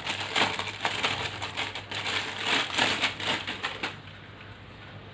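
Irregular crinkling and crackling from the tripod and its wrapping being handled, stopping about four seconds in.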